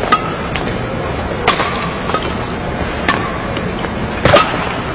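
Badminton rally: a racket hits the shuttlecock four times with sharp cracks, about a second and a half apart. The last and loudest hit comes about four seconds in, over a steady background of hall noise.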